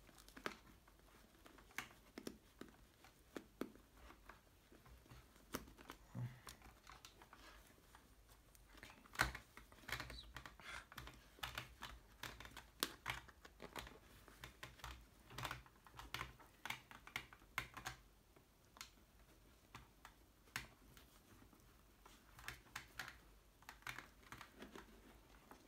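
Faint, irregular clicks, taps and rustles of a motorcycle helmet's padded cheek pad and liner being handled and pressed into place, with one sharper click about nine seconds in.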